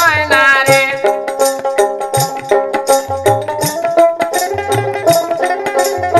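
Bengali folk wedding song music. A sung phrase trails off within the first second, followed by an instrumental passage: a held melody over jingling hand percussion and deep drum strokes.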